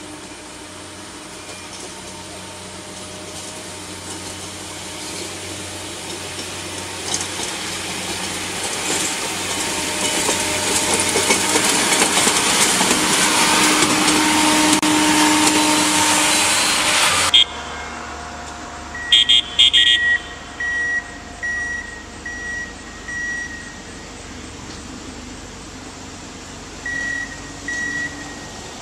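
Rail maintenance-of-way machines running along the track: engine and wheel noise grows steadily as one machine passes close, then cuts off suddenly. After the cut a quieter machine rumble continues, with a few short loud blasts and then a repeated short electronic beeping, typical of the warning beeper on track equipment.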